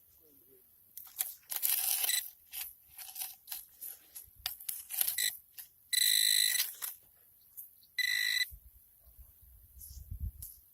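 A handheld metal-detecting pinpointer sounds two steady high beeps, the first about 0.8 s and the second about half a second, alerting to a metal target. Around them come scattered crunching and scraping as ash, dirt and debris are dug through by hand.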